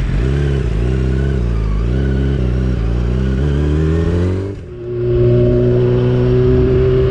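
Yamaha R6 sportbike's 600cc inline-four engine pulling away, the revs climbing unevenly. About four and a half seconds in the note drops briefly as it shifts up, then it climbs steadily again under throttle.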